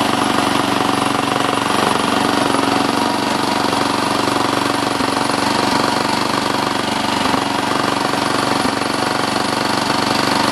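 7¼-inch gauge miniature train on the move, heard from a passenger coach: the locomotive's engine runs steadily under a fast rattle of wheels on the track, with a few faint clicks.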